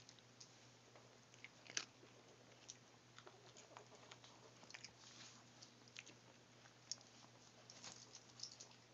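Faint, irregular little clicks and smacks of four-week-old chihuahua puppies mouthing and chewing at one another, the sharpest one about two seconds in, over a low steady hum.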